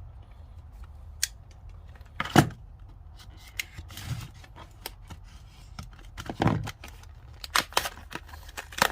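Metal pliers wrenches being handled, giving a series of sharp, irregular clicks and clacks. The loudest comes about two and a half seconds in.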